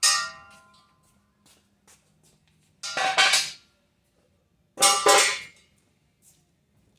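Steel clanging: a sharp metal strike that rings for about a second, then two quick clusters of clanks with short ringing, about three and five seconds in.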